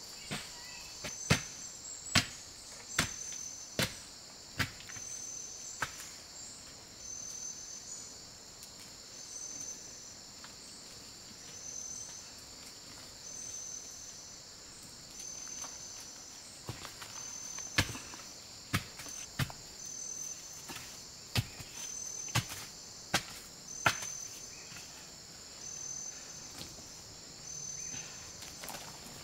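Steady chorus of forest insects, its buzz swelling in a pulse a little more than once a second. Sharp knocks come in two irregular runs, one in the first few seconds and another about two-thirds of the way through.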